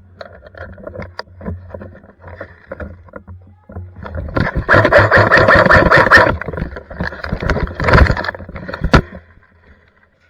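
Airsoft electric gun firing a rapid full-auto burst lasting about two seconds, starting a little after four seconds in, followed by scattered shorter shots and sharp knocks, over a low steady hum.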